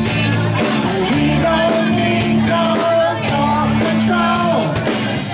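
A live rock band playing: electric guitar, acoustic guitar and bass over a steady beat, with a singer's voice carrying the melody.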